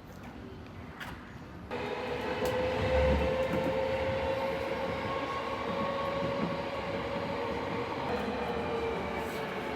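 Tokyo subway train running, with a steady rumble and a motor whine that slowly falls in pitch as the train slows. The noise starts abruptly a little under two seconds in, after a quieter moment.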